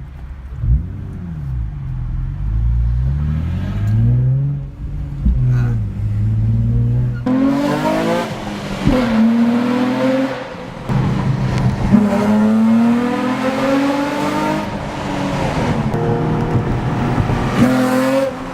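Car engine accelerating hard through the gears. Its note climbs, then drops at each shift, several times over, and it gets louder and higher about seven seconds in, after a gentler stretch of rising and falling revs.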